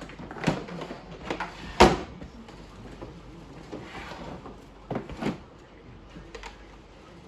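Peg Perego Corral T-Rex 330W plastic children's quad being turned over and set down, its plastic body and wheels knocking against the floor: several knocks, the loudest about two seconds in and two more close together about five seconds in.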